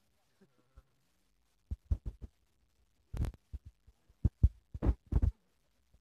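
Irregular dull thumps and knocks in short clusters, about two, three and five seconds in, with near silence between them.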